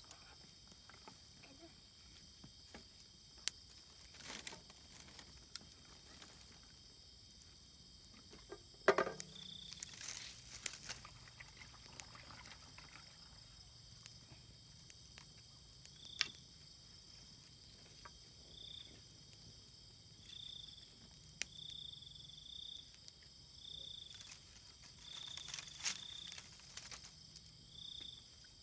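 Night insects: a steady, high-pitched cricket chorus, with one insect giving repeated short chirps through the second half. A few faint clicks and knocks come through, the loudest about nine seconds in.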